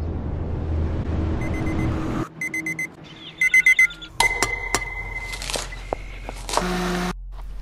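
Electronic alarm clock beeping in three quick groups of short beeps, each group louder than the last, after about two seconds of low rumbling noise; then clicks and clatter of kitchen work at a gas stove.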